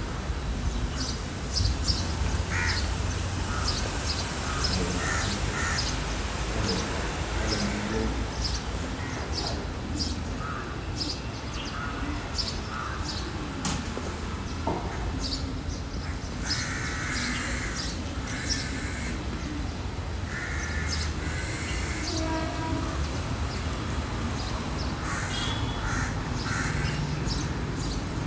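Crows cawing in several short runs of calls, over a steady low rumble of outdoor background noise.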